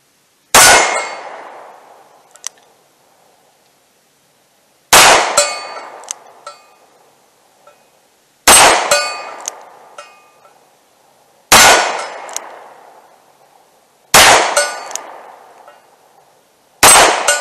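Six shots from a Taurus 856 .38 Special revolver with a 2-inch barrel, fired single action about three seconds apart, each a sharp crack with a ringing decay, with fainter clicks between shots.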